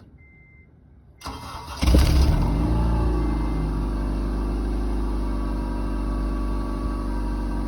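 8th-generation Honda Civic cold start: about a second in the starter cranks briefly, the engine catches, its revs flare up and settle back, and it runs on at a steady idle.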